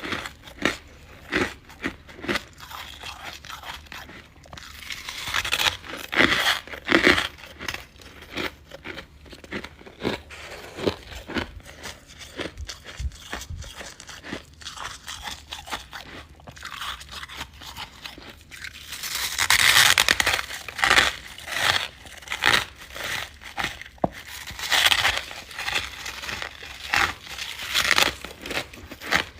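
Refrozen freezer frost being bitten and chewed, crunching and crackling in many quick strokes. The crunching grows louder about six seconds in and again around twenty seconds in.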